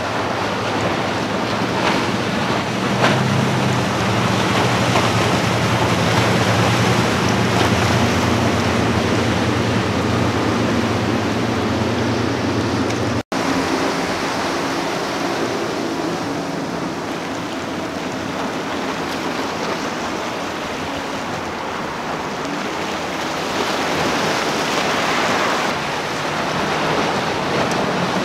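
Center-console boats' twin outboard motors running past at speed: a low engine drone under a steady rush of water from the hull and wake. The sound drops out for an instant about 13 seconds in.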